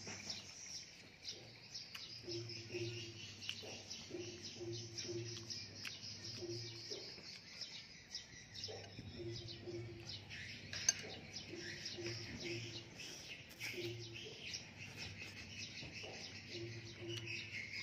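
Many small birds chirping continuously, with a low hum that comes and goes in short spells underneath and a single sharp click about eleven seconds in.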